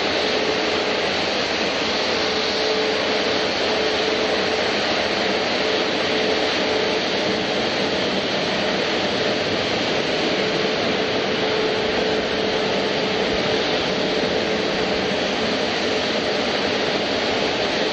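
Airliner jet engine noise at a steady level: a continuous rushing sound with a faint steady tone in it, neither rising nor falling.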